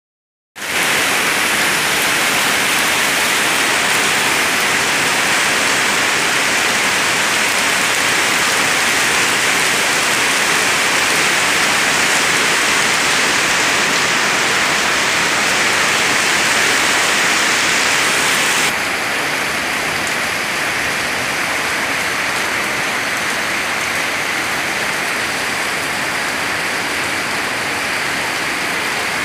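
Rain falling steadily, a dense even hiss. About two-thirds of the way through it turns a little quieter and duller.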